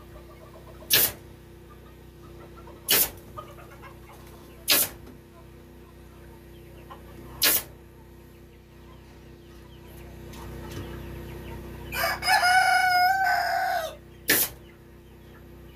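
Pneumatic staple gun firing five single shots a few seconds apart, fastening wire mesh to a wooden window frame. About twelve seconds in, a rooster crows once for about two seconds.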